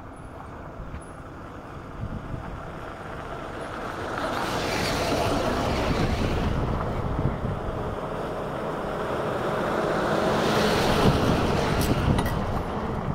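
Vintage Toyota Land Cruiser FJ40-series four-wheel drives, with inline-six petrol engines, driving past one after another on a gravel track. Engine and tyre noise swells twice as two of them pass close, with wind on the microphone.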